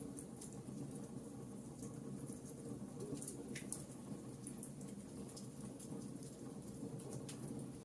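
Wood fire in a fireplace crackling, with many small sharp pops at irregular intervals over a low, steady rush of the flames.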